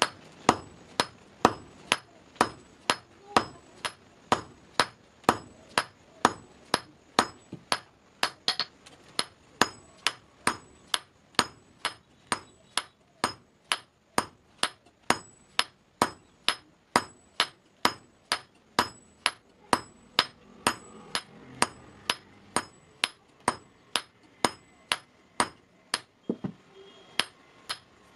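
Hand hammer striking red-hot steel bar on a steel anvil block. The blows come in a steady run of about two a second, each with a short metallic ring, with a brief pause near the end.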